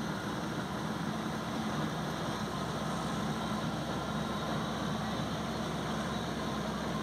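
Combine harvester running while it cuts the standing crop: a steady, unbroken engine and machinery noise.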